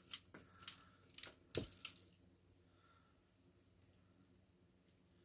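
A few light metallic clicks and taps in the first two seconds as a padlock and lock picks are handled, then near silence with only faint ticks while a rake works in the lock.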